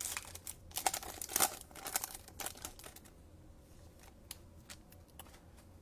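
Trading-card pack wrapper crinkling as it is opened, a dense run of crinkles for about three seconds. Then come a few light clicks as the cards are handled.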